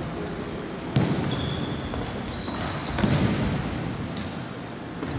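Futsal ball kicked on a wooden sports-hall floor: a sharp thud about a second in and another about three seconds in, ringing in the large hall. A few brief high squeaks come between the kicks.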